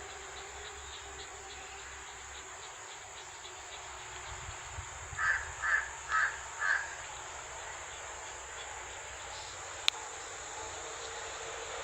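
A crow cawing four times in quick succession over a steady high insect drone, with a single sharp click near the end.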